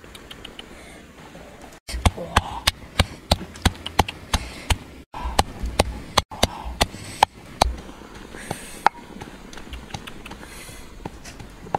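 Knife chopping food, a quick run of sharp knocks about three a second that starts about two seconds in and stops around eight seconds, with a few single knocks after.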